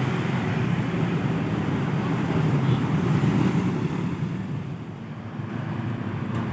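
A medium-sized tour bus driving past on the road: a steady rush of engine and tyre noise that eases off about five seconds in.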